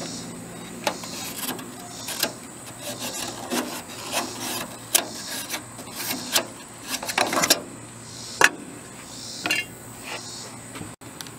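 Pencil scratching around a metal drop outlet set in a sheet-metal gutter, tracing its outline, in uneven strokes with light clicks and scrapes of the outlet's flange against the gutter, the sharpest about five seconds in and again past eight seconds.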